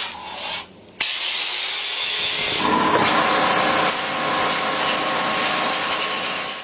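A power tool working against a workpiece, a steady abrasive noise that starts abruptly about a second in. A faint steady whine joins partway through.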